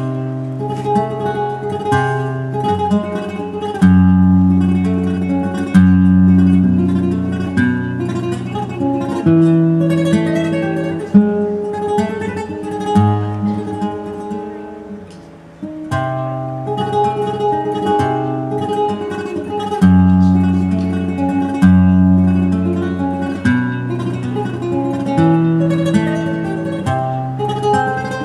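Solo flamenco guitar playing a taranta: low bass notes ring under chords and melodic runs. A phrase fades out about fifteen seconds in and a new, louder one starts a second later.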